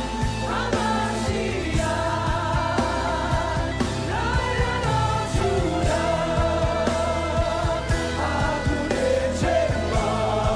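Live gospel worship music: voices singing sustained, wavering notes over a band with a steady low bass.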